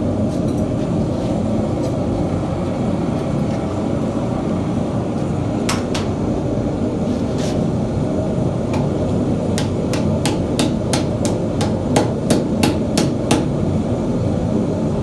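Hand hammer striking hot thin mild steel plate, cupping a forged fish body into a valley, over a steady roar. A few scattered blows come first, then from about ten seconds in a run of even strikes about three a second.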